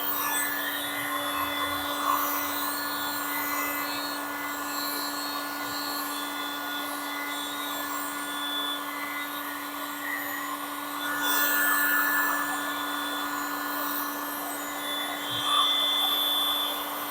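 A handheld electric blower running steadily, a constant motor hum under a rush of air, getting louder for a second or so about eleven seconds in and again near the end.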